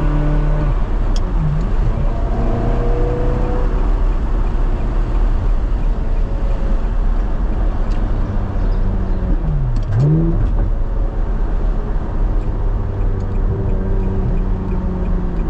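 Ferrari 360 Modena's V8 running through a Fabspeed exhaust with its valves open, over a steady low rumble. The engine pitch dips and climbs again about a second and a half in and again about ten seconds in, as it does through a gear change, with a few sharp clicks around those changes.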